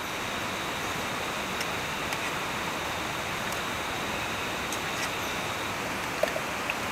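Steady rush of river water flowing. Over it run a thin steady high tone and a few faint scattered clicks.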